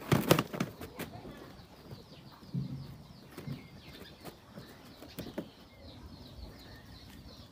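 Plastic food cover clattering and creaking as a baby monkey lands on it in the first second, followed by a few lighter knocks and rustles as the cover is handled. Birds chirp in the background.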